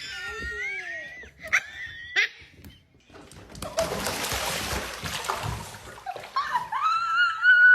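High-pitched wavering cries, then about two seconds of splashing water, then another high rising cry that cuts off suddenly.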